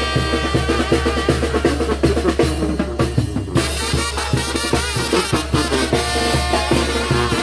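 Oaxacan brass band playing a chilena: brass over snare and bass drum in a steady dance rhythm. About two and a half seconds in, the horns thin out for roughly a second of drumming, then the full band comes back in with a bright cymbal wash.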